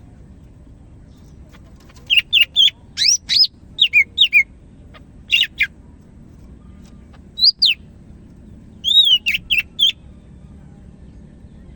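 Green leafbird (cucak hijau) singing in full voice: loud, clear whistled notes sweeping up and down, in short bursts of phrases from about two seconds in, with pauses between them.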